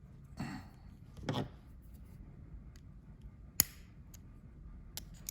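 Small handling sounds of a reproduction Thunderbird power window switch being pressed into its switch plate: two soft scrapes, then one sharp click about three and a half seconds in and a couple of faint ticks near the end. The switch's retaining clip rides past the locking groove and does not lock.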